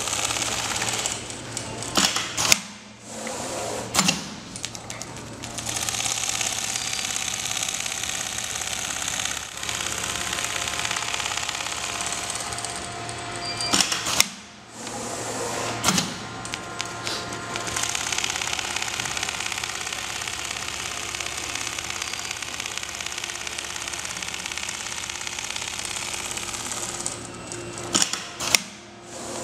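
CNC template sewing machine stitching quilting lines through a down-jacket sleeve panel at speed, a steady rapid mechanical chatter. It pauses briefly about three seconds in, about halfway through and near the end, with sharp clacks around each stop and restart.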